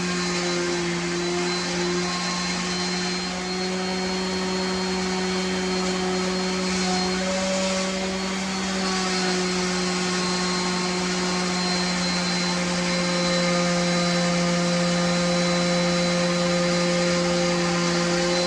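An electric motor running steadily with a constant hum, without stopping or changing speed.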